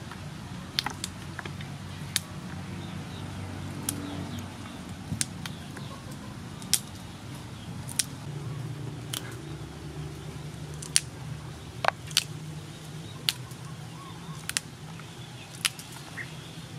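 Fresh long beans (yardlong beans) snapped by hand into short pieces, giving a crisp snap about once a second.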